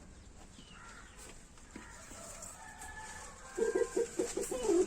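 A chicken clucking in a quick run of short low notes, about five a second, over the last second and a half. Before it, a faint drawn-out bird call sounds in the background.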